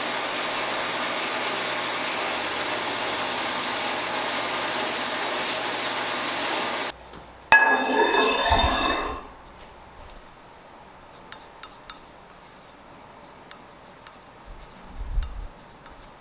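Ellis metal-cutting bandsaw running steadily as it cuts through rectangular steel tubing, stopping abruptly about seven seconds in. Then a short clatter of steel tubing with a metallic ring, followed by faint light taps and knocks.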